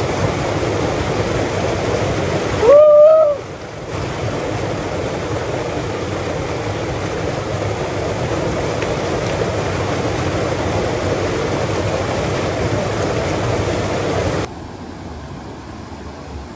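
Small waterfall pouring into a rock pool with a steady rush, splashing over a man bathing under it. About three seconds in he gives a short, loud vocal exclamation. Near the end the rush drops suddenly to the fainter sound of a small stream.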